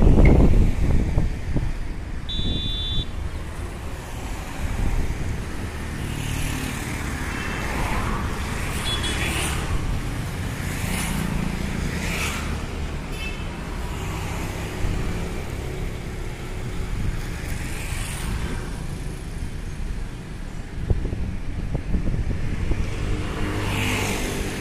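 Motorised sliding gate running as it rolls shut and then slides open again, over steady road traffic with several cars passing. A short electronic beep sounds about two seconds in.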